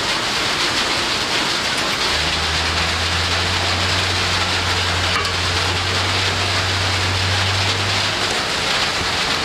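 Heavy rain falling steadily. A low steady hum joins about two seconds in and stops about two-thirds of the way through.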